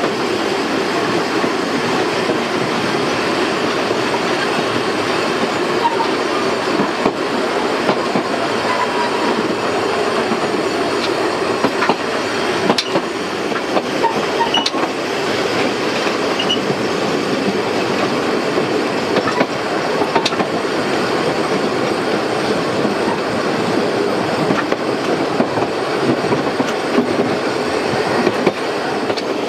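750 mm narrow-gauge railway carriages running along the track, heard from aboard the train: a steady rumble and rattle of wheels on rails, with a few sharp clicks along the way.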